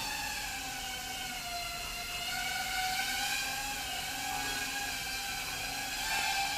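Eachine Tyro89 toothpick FPV quadcopter's four brushless motors and propellers whining steadily in flight, the pitch wavering slightly up and down with throttle.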